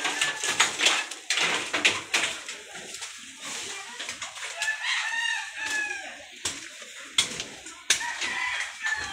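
A rooster crowing once, about halfway through, with a shorter call near the end. Sharp footsteps and rustling over fallen leaves and branches are loudest in the first couple of seconds.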